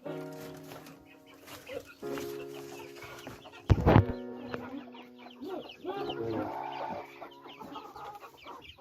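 Chickens clucking around the coop, with background music underneath. About four seconds in there is a loud, brief noise.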